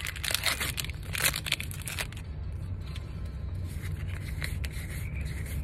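Foil wrapper of a Pokémon card booster pack tearing and crinkling during the first two seconds. Then come quieter clicks of the cards being handled and flipped, over a steady low hum.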